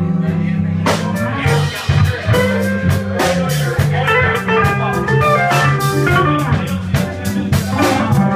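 Live blues band playing: electric guitar, bass guitar and keyboard, with the drum kit and cymbals coming in about a second in and keeping a steady beat.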